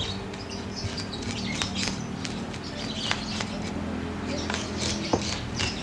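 Chef's knife scoring a whole red snapper: a string of short, irregular scrapes and clicks as the blade cuts through skin and flesh, over a steady low hum.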